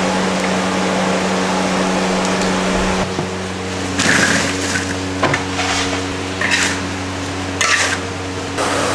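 Kuih keria (sweet potato doughnuts) sizzling as they deep-fry in a large wok of oil, over a steady low hum. Then comes the clatter and scrape of the fried doughnuts tumbling into a metal wok and being stirred with a metal ladle: several short scraping bursts.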